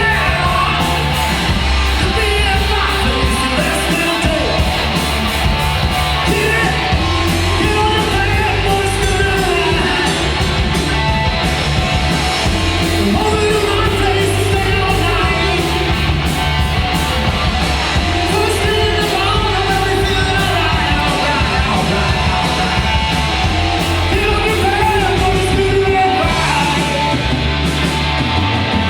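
Hard rock song played loud by a band, with a singer belting over it throughout.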